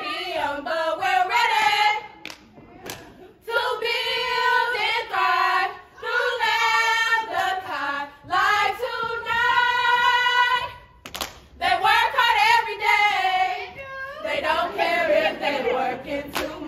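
A group of women chanting and singing in unison, in phrases of a couple of seconds with short breaks between them, punctuated by a few sharp claps.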